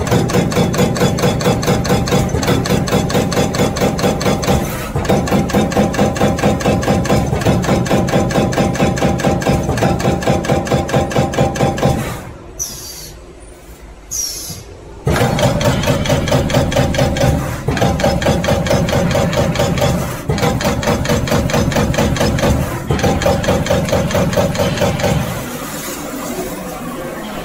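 Hydraulic CNC turret punch press punching sheet metal: a fast, even run of punch strokes, several a second. The punching stops for about three seconds midway, with a couple of brief high whines, then starts again.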